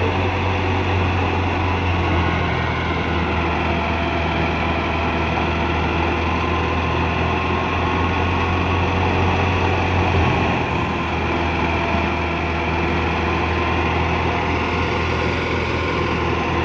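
Fiat 640 tractor's diesel engine running steadily under load, driving a wheat thresher, with the thresher's drum and fan running along with it. The engine note dips slightly about ten seconds in.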